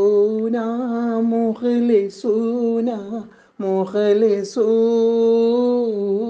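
A man singing an Arabic poem unaccompanied, holding long, gently wavering notes, with a short pause for breath about halfway through.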